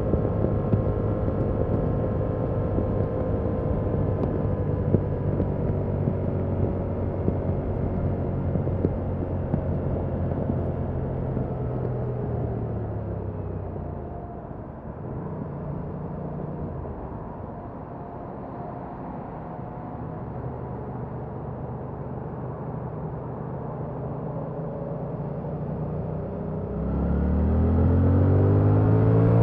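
Stock 2021 Yamaha MT-07's 689 cc parallel-twin engine running at a steady cruise. About halfway it drops in pitch and level as the bike slows, then runs low and quiet. Near the end it revs up loudly as the bike accelerates.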